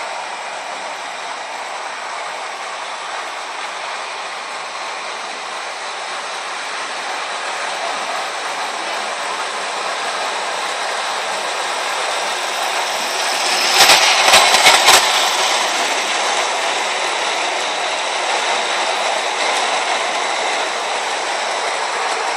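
Ace Trains O gauge model A4 locomotive and a rake of tinplate coaches rolling on three-rail track, a steady running noise that grows louder as the train comes near. About two-thirds of the way through there is a quick run of sharp clicks.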